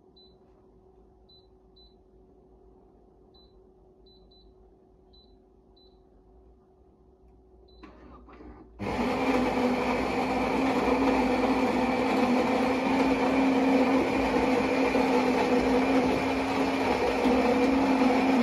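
Philips EP5144/70 LatteGo bean-to-cup espresso machine grinding beans for a latte macchiato. Its built-in grinder starts about nine seconds in and runs as a loud, steady whirring grind with a low hum, then stops abruptly near the end. Before it starts there is a low hum with a few faint high ticks.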